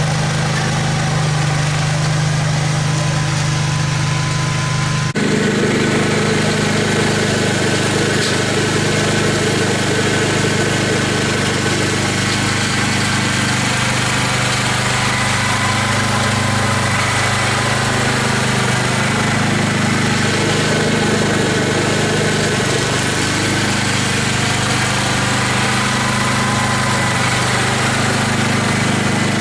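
Small gasoline engine of a snow-moving machine running steadily, the engine sound changing abruptly about five seconds in.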